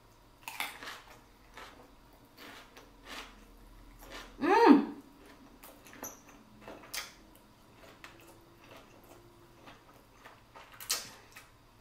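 Close-miked chewing of a bite of shrimp, sausage and cucumber: scattered wet clicks and crunches, with a brief hummed sound about four and a half seconds in.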